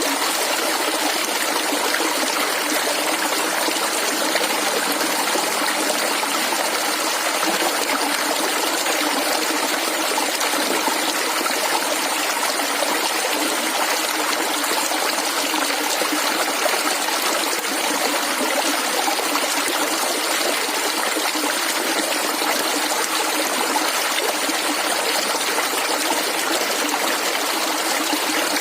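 A small stream of clear water flowing and gurgling steadily, with no pauses or changes.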